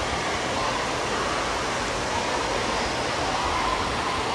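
Steady rush of running water in an echoing indoor water-park hall, with faint distant voices of children over it.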